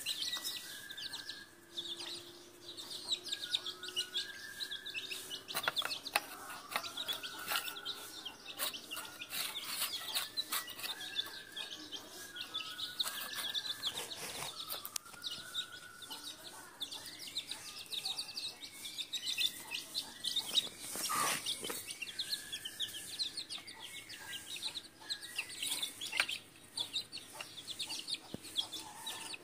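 Hens and chicks: chicks peeping almost constantly over short hen clucks, with scattered sharp taps of beaks pecking at a tiled floor.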